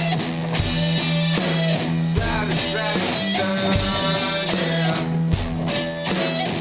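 Rock music backing track with electric guitar and a drum kit keeping a steady beat.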